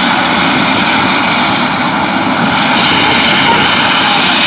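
Eurocopter EC130 helicopter running on the ground with its main rotor turning: a loud, steady blend of turbine whine and rotor noise, the high whine a little stronger from about halfway through.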